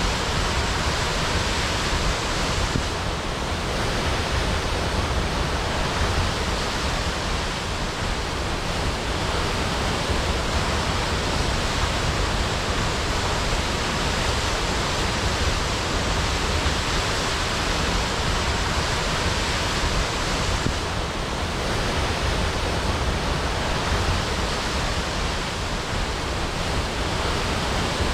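Waterfall crashing: a steady, dense rush of falling water.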